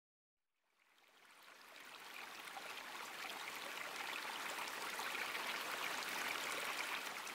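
A steady rushing, hissing noise like flowing water fades in after about a second and then holds even.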